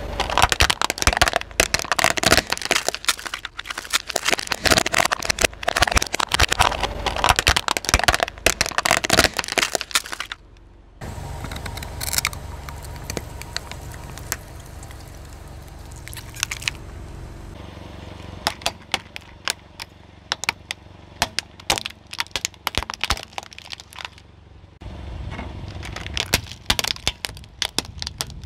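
Car tyre slowly rolling over hard plastic toy cars, giving a long run of dense cracking and snapping as they break. Then a low steady rumble with only a few small cracks as the tyre presses into soft slime. Scattered snaps of plastic breaking under the tyre come back later and grow denser near the end, as it rolls over a plastic toy crocodile.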